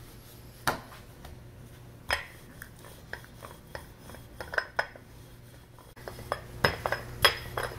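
Rolling pin rolling dough on a stone countertop: scattered sharp clicks and knocks from the pin and its wooden handles, a second or two apart at first and coming closer together near the end.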